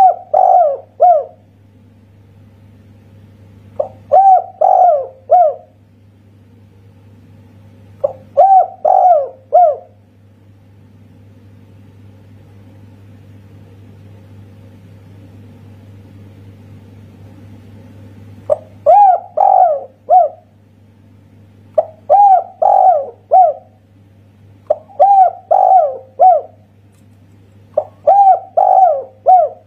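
Spotted dove (tekukur) cooing its 'kuk satu' song: seven short phrases of three or four coos each, a few seconds apart, with a long pause in the middle. A faint steady low hum runs underneath.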